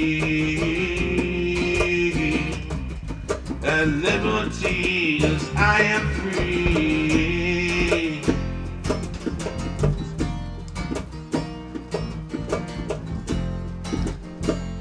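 Band playing an instrumental passage led by guitar. A held, wavering melody line carries the first eight seconds or so, then gives way to busier rhythmic playing with sharp strikes.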